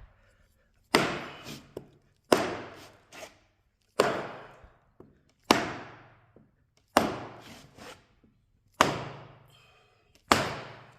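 Hammer blows knocking reclaimed white pine floorboards end to end to close the butt seams: seven sharp strikes about every second and a half, each dying away over about a second.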